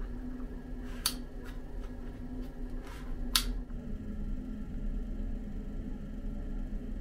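A steady low hum with a few sharp clicks, the two loudest about a second in and about three and a half seconds in.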